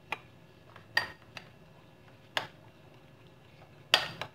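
A metal spoon clinking against a small ceramic bowl while a thick paste is stirred: about five separate clinks, the loudest near the end.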